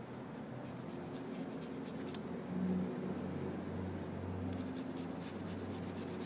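Cleaning putty being pressed and rubbed over the keys of an Apple keyboard, a soft scuffing with runs of faint quick clicks from the keys. There is one sharper click about two seconds in.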